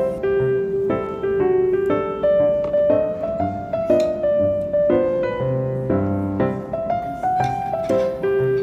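Background piano music: a melody of held notes over lower bass notes, with no speech.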